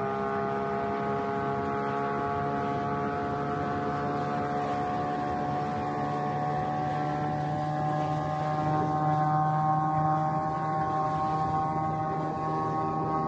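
Motorboat engine running steadily under way, its pitch rising slowly as it picks up speed, with a slight swell in loudness about nine seconds in.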